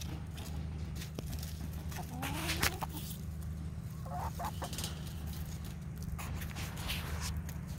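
Backyard hens clucking while they forage, with a few short calls about two seconds in and again about four seconds in.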